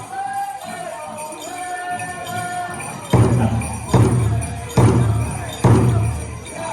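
Powwow music: a high voice holds a long sung line for about three seconds, then a big powwow drum comes in with loud strikes a little under a second apart. Jingles rattle throughout.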